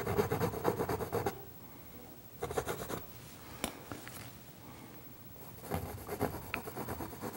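Palette knife scraping paint across a stretched canvas in quick repeated strokes, in three spells: over about the first second, briefly near three seconds, and again from about six seconds on.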